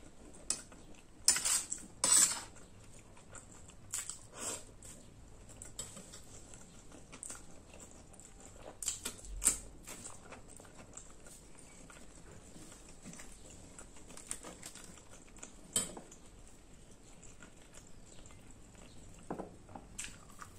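Close-miked eating: chewing and wet mouth sounds, with a few sharp clinks of a steel spoon against a steel plate, loudest about one and two seconds in.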